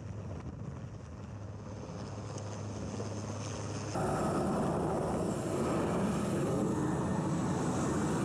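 Rescue helicopter's engine and rotor noise, a steady low hum heard from the ship's deck. About four seconds in it cuts abruptly to a louder, denser noise heard from inside the cabin with the side door open.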